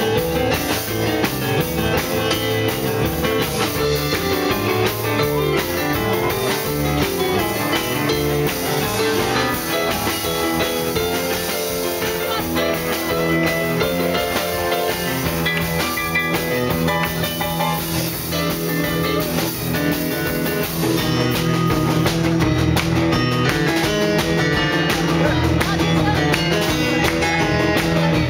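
Live rock and roll band playing: electric keyboard, electric guitar and drum kit together. The band gets a little louder, with more cymbal, about three-quarters of the way through.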